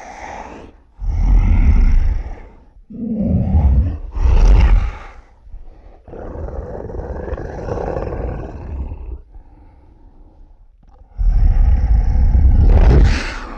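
A series of loud animal roars, one after another, each a second or two long, with a longer, quieter growl in the middle and the loudest roar near the end.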